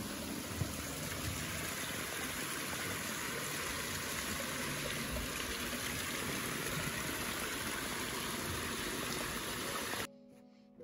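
Small woodland stream running down a sloping rock slab in a shallow cascade, a steady rush of water that cuts off suddenly near the end.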